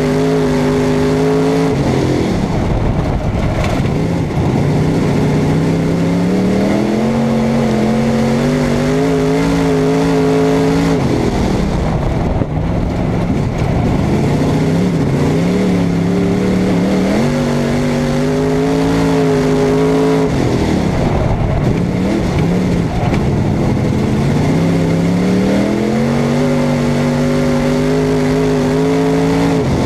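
Super stock dirt-track race car's engine, heard from inside the cockpit, running hard at racing speed. Its pitch climbs steadily as the throttle is held open and drops off sharply when the driver lifts, about every nine seconds, lap after lap.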